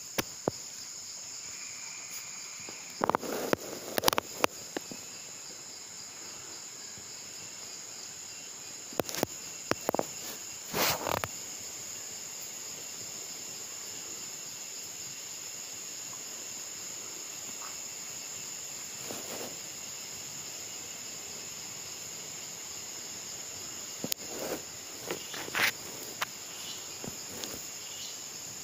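Steady, high-pitched chorus of insects droning throughout. Short clusters of clicks and knocks cut in a few seconds in, again around ten seconds, and near the end.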